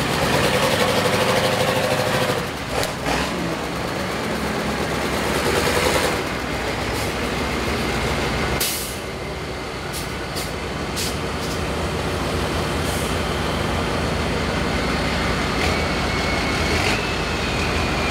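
Engines of old school buses running and revving, with a few sharp bangs scattered through.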